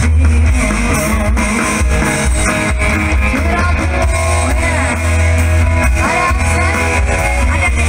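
Loud rock-style song with singing, guitar and drum kit.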